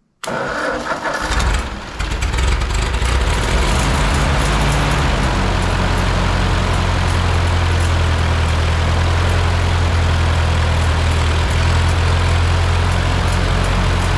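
Freshly rebuilt Ford 8N four-cylinder flathead engine starting on a squirt of starting fluid with a jumper pack: it bursts into life right away, stumbles briefly about two seconds in, then settles into a steady, loud run.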